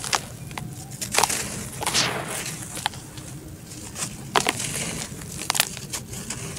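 Dry, powdery red dirt chunks crumbling in bare hands over a basin: several sharp crunches and cracks as the chunks break apart, with a brief gritty rush of falling powder about two seconds in.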